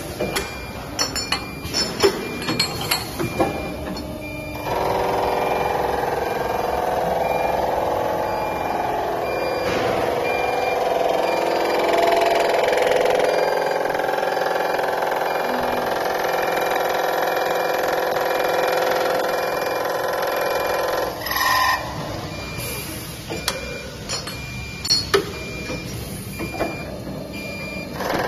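Automatic tube-end boring and chamfering machine working through a cycle. At first come sharp clicks and clunks of the clamps and the tube feed. About five seconds in, the spindle starts a steady whine of several pitches as it bores the tube end. The whine stops suddenly about twenty-one seconds in, and more clunks follow.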